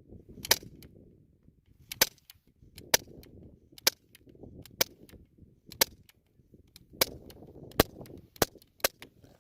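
BB gun firing about ten shots in a row, a sharp crack every second or so, coming a little quicker near the end.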